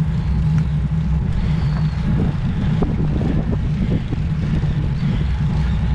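Steady, loud wind rush buffeting the microphone of a camera on a road bike during a ride.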